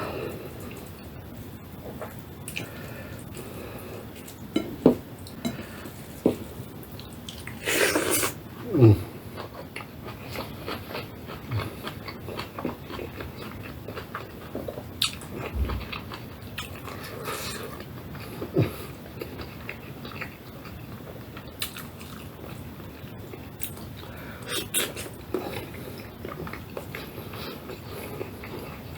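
Close-up eating sounds of a person working through rice, spinach soup and fried potatoes: chewing and biting with irregular mouth clicks and smacks, and a louder noisy burst about eight seconds in.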